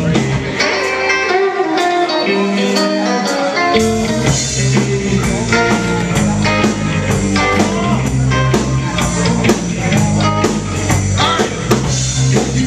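Live rock band playing, electric guitars over a drum kit. The low end drops away for a few seconds, then the full band comes back in nearly four seconds in.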